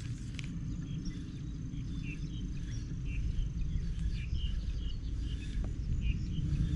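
Outdoor ambience: short high chirps, several a second, over a steady low rumble that grows a little louder toward the end.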